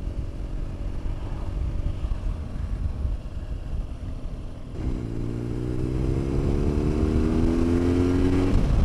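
BMW R1200GS boxer-twin engine under way, over wind and road rumble. About five seconds in, the engine note rises steadily in pitch for about four seconds as the bike accelerates, with a break near the end.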